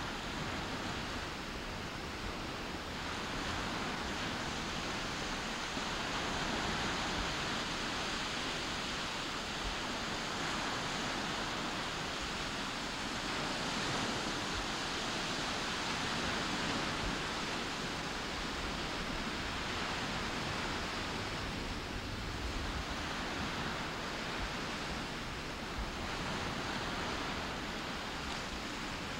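Small waves breaking and washing up on a beach: a steady rush of surf that swells and eases every few seconds.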